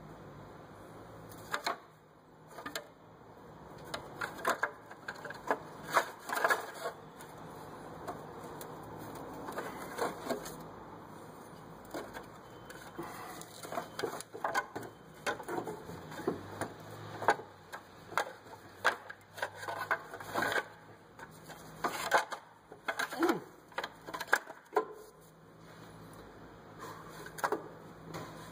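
Irregular metallic clicks, clunks and scrapes as an alternator and its shield are wrestled and turned into place in a tight engine bay.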